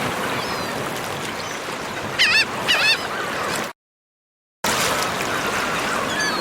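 Small waves washing on a shore as a steady hiss, with seagulls calling: two loud calls a little over two seconds in and fainter calls further off. The sound drops to dead silence for about a second just past the middle, then the surf and gull calls resume.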